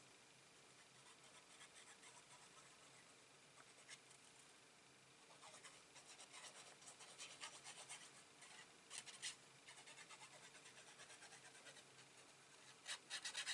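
Faint scratching and rubbing of paper and cardstock as a panel is glued on and pressed down by hand, mostly in the middle stretch and again near the end.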